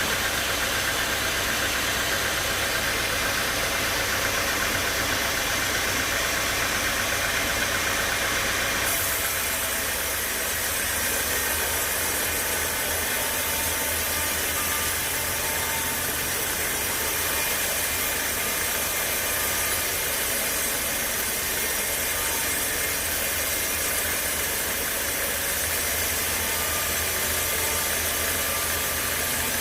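Sawmill machinery running steadily with a low, engine-like hum. About nine seconds in, the high hiss changes abruptly and the middle of the sound drops back, while the hum carries on.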